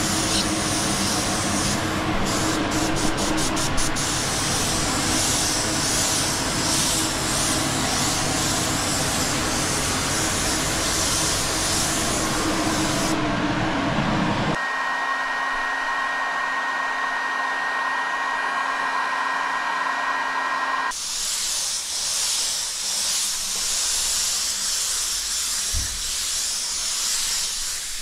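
ANI HPS Compact spray gun with a 1.3 tip hissing as it sprays base coat. The hiss gives way for several seconds around the middle to a duller hum with a steady whine, then resumes.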